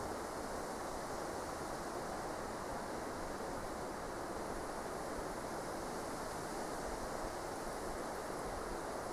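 A steady, even hiss of outdoor background noise with no distinct events in it.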